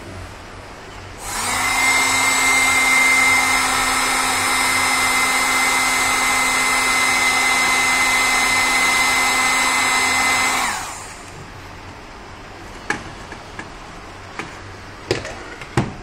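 Handheld electric heat gun switched on about a second in, blowing hot air onto heat-shrink tubing over a laptop charger's soldered connector joint: a steady fan hum with a high whine, cut off sharply after about ten seconds. A few light clicks and knocks follow near the end.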